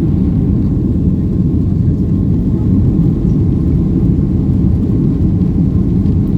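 Boeing 757 jet engines during takeoff, a loud, steady low rumble with no change in pitch or level.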